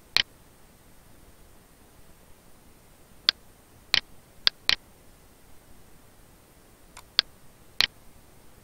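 Computer mouse button clicks: about seven sharp, separate clicks at uneven intervals, including a quick double-click about four and a half seconds in, over faint room hiss.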